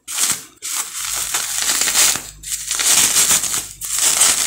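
Bubble wrap crinkling and rustling as hands handle it and work it off a fishing rod, in several stretches broken by short pauses.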